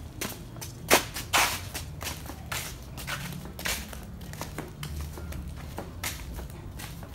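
Footsteps on a concrete walkway, a steady run of short steps with two louder slaps about a second in.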